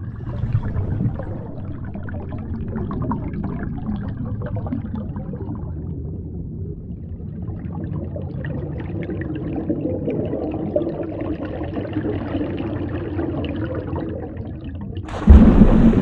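Underwater recording of water bubbling and gurgling, with many small crackles over a low rumble. Near the end, a sudden loud splash as something plunges in from the surface, starting a rush of bubbles.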